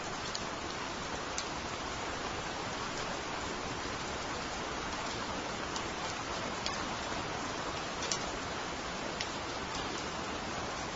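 Steady rain falling on leafy trees and a wet paved path, an even hiss broken by scattered sharp drips of single drops.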